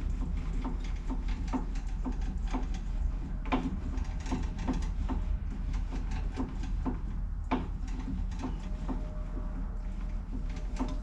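Craftsman metal lathe running after its carriage was reassembled: a steady low hum with a regular clicking about two to three times a second from the moving gears and carriage.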